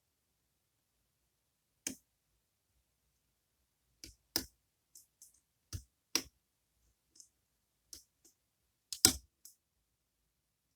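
Scattered sharp clicks and taps of small metal lock parts and tools being handled on a desk while dropped pins are hunted for. There is a single click, then a quick cluster, and the loudest taps come near the end.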